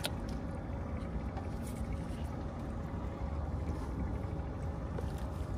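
Steady low rumble of wind and sea water around a small fishing boat, with a short click right at the start.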